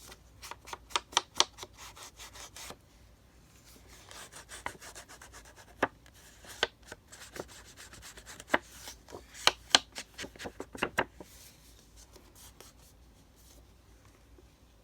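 Ink pad dabbed and rubbed along the edges of paper: quick sharp taps in three bunches, with soft rubbing between them.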